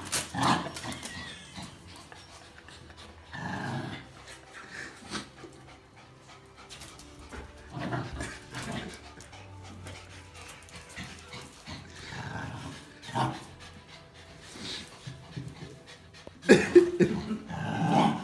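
Dogs growling and panting as they tug at a towel in play, with the loudest growling near the end.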